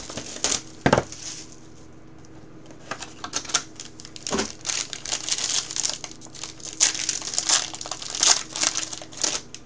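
Plastic wrapper of a trading-card pack being crinkled and torn open by hand, in irregular bursts, with a sharp snap about a second in.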